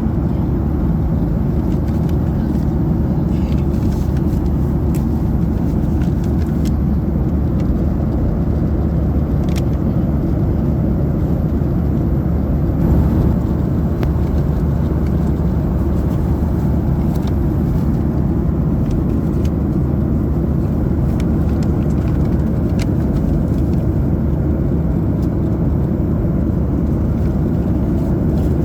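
Steady, loud low rumble of a Boeing 737-800 heard from inside the passenger cabin: its CFM56 jet engines and the airflow as the airliner moves.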